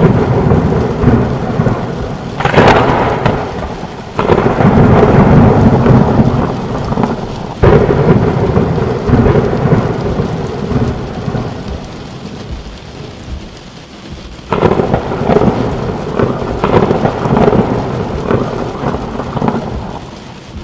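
Thunderstorm: four sudden thunderclaps, each rolling off into a long rumble, over steady rain.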